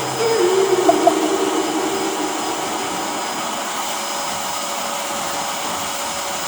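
Vacuum cleaner running steadily, an even motor hiss with a faint high whine.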